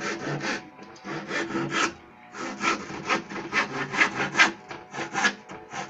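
Hand saw with case-hardened teeth cutting through a wooden shelf board: quick, even back-and-forth strokes, with a short pause about two seconds in.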